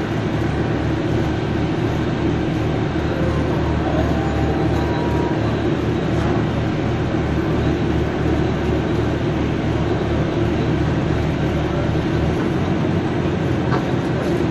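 Inside the cabin of a Higer KLQ6930G city bus under way: a steady engine drone and road rumble with a low pulsing throb.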